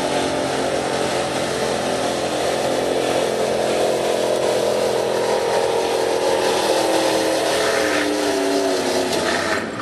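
Gasoline pickup truck's engine running at high revs under full load as it drags a weight-transfer pulling sled. Its pitch sags slightly near the end as the load builds.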